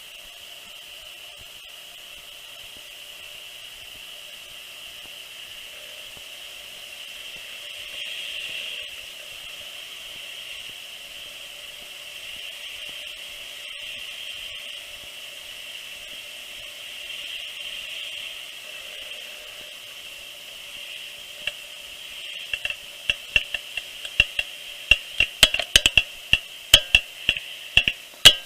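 A steady hiss, then about three quarters of the way in a 2013 Subaru XV's front wheels start clicking: sharp clicks that come faster and louder, several a second near the end, the noise the car makes when turning. The owner can't tell whether the wheel bearings or the drive axles are at fault.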